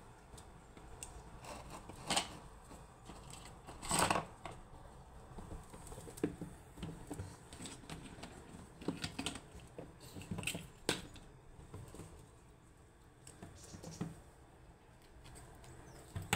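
A red squirrel's claws clicking and scrabbling on a plastic tub and a windowsill as it climbs about and handles a nut. The light clicks, taps and scrapes come irregularly, the loudest about four seconds in.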